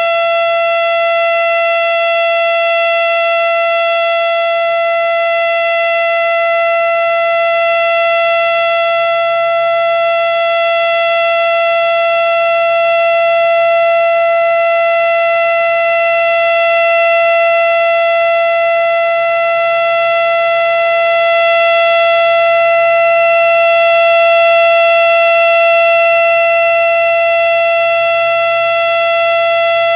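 Darley STH-10 outdoor warning siren sounding the alert signal: one loud, steady tone held at a constant pitch throughout. This steady tone is the alert signal of the monthly siren test.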